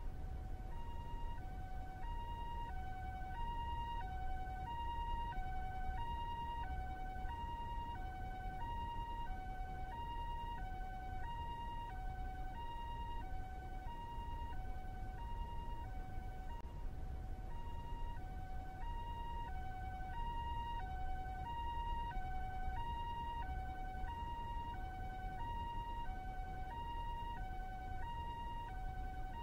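Japanese ambulance's two-tone siren alternating steadily between a high and a low note, a full high-low cycle a little over once a second, over a steady low rumble.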